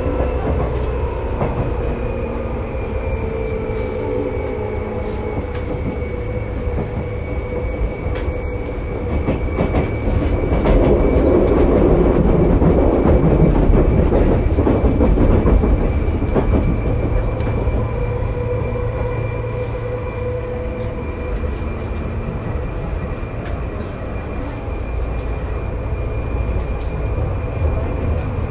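Interior running sound of a Seibu 2000 series field-chopper-controlled electric motor car on the move: continuous wheel and motor noise with a faint steady whine. It grows louder and rougher for several seconds in the middle, then settles back.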